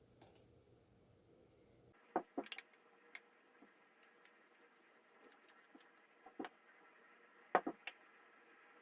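Faint room tone with a few scattered light clicks and taps from small objects being handled: a cluster about two seconds in, one near the middle, and a couple more about three-quarters through.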